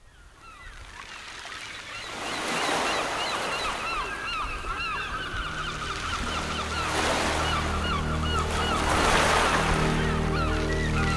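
Sea surf washing in waves, with many gulls calling over it, fading up from silence. Low sustained tones join about halfway through.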